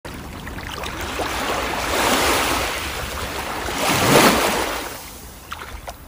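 Sea waves washing in, a steady hiss that swells twice, most strongly about four seconds in, then fades away.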